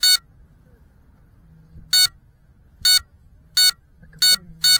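A crashed FPV quadcopter's lost-model buzzer beeping: six short, sharp beeps at uneven gaps of about a second, coming closer together near the end.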